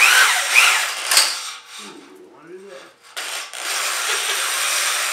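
Electric drill spinning a cylinder hone in a Ford 8N engine block's cylinder bore, the oiled hone stones scraping the wall. It runs in a loud burst, eases off about two seconds in, then runs steadily from about three seconds in. This is a light hone to clean off glaze and rust, not to take off material.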